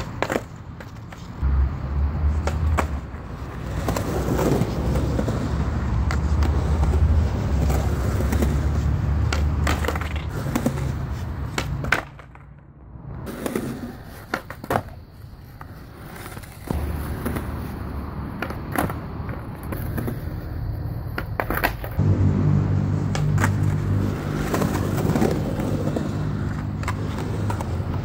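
Skateboard wheels rolling on concrete with a low rumble, broken by repeated sharp clacks of the board popping, hitting the concrete and landing during kickflip attempts on a concrete bank. The rolling drops away briefly about twelve seconds in, then picks up again.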